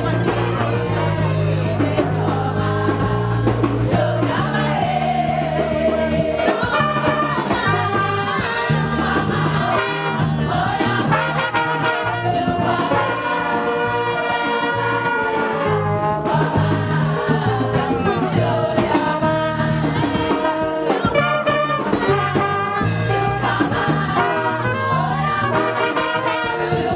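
Music with brass instruments and singing over a steady bass line, playing without a break.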